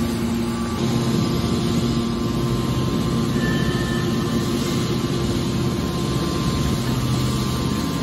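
Hydraulic scrap metal baler running, its power unit giving a steady low hum as the hydraulic cylinders swing the heavy hopper lid.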